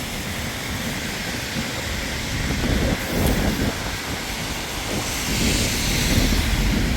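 Heavy rain falling on an umbrella and a wet street, a steady hiss over a low traffic rumble, swelling about five seconds in as a vehicle passes on the wet road.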